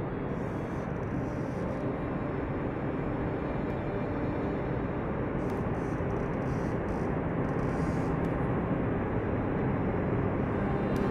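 Iguazu Falls waterfall pouring into its gorge: a steady, dense rush of falling water that grows slowly louder.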